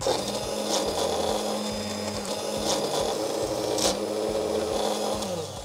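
Hand blender with a chopper bowl attachment running steadily, chopping garlic, parsley and oil into a paste. It starts at once and winds down just before the end, with three sharp clicks along the way.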